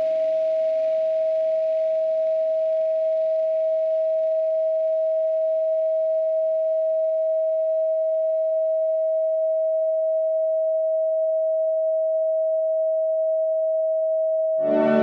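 A steady pure sine tone at 639 Hz, the uploader's 'healing frequency' for attraction, held unchanged in pitch and level. Faint ambient music beneath it dies away over the first several seconds, and ambient synth music with many sustained notes comes in just before the end.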